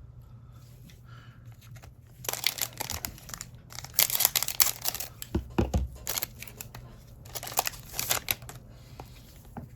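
Crinkling and tearing of a trading-card pack's foil wrapper, in three bursts of crackling after a quiet start, with a couple of soft knocks against the table in the middle.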